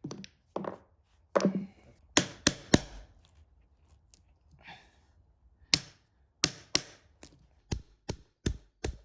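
A series of sharp knocks, like blows from a hand tool. Three come in quick succession about two seconds in, then a run of evenly spaced strikes follows through the second half.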